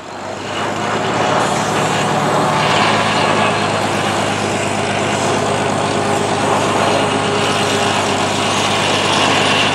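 Engine of the forklift-type machine holding the sandbag, running steadily. It swells up over the first second, then holds an even drone.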